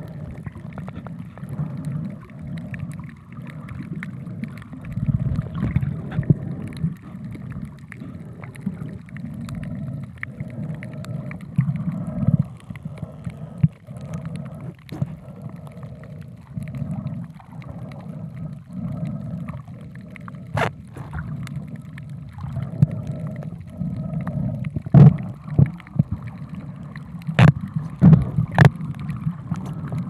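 Water sound recorded underwater: a low, uneven, muffled rumble of moving water, with a few sharp clicks in the last third.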